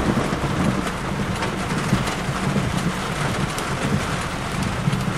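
Heavy rain pattering on a car's roof and windows, with a steady low rumble underneath.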